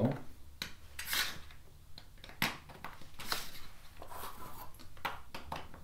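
Plastic Lego bricks and plates clicking and clattering as they are picked from a loose pile and set down or pressed together on a wooden floor: a string of light, irregular clicks.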